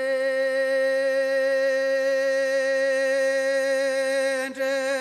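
A single voice sings one long held note with a slight waver, breaking off briefly near the end and then taking the note up again.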